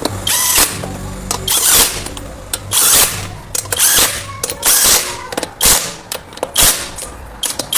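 Power tool run in short repeated bursts, about one a second, over a steady low hum.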